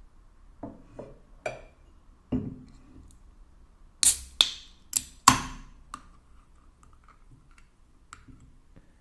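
Tableware being handled on a table: a few soft knocks, then four loud, sharp clinks and clacks in quick succession about four to five and a half seconds in, followed by faint ticks.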